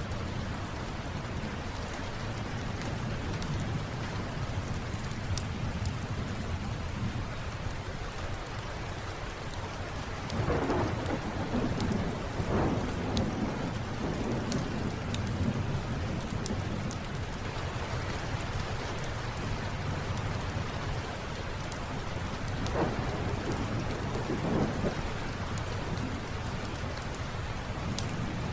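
Steady heavy rain with thunder rumbling twice, once about a third of the way in and again past three-quarters. A fireplace crackles with scattered sharp small pops.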